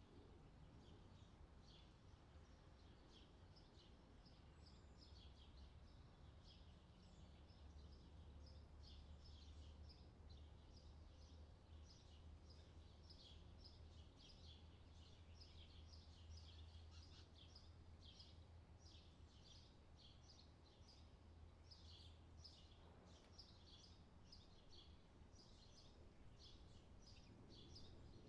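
Near silence with faint bird chirping: many short, irregular high chirps throughout, over a low steady hum.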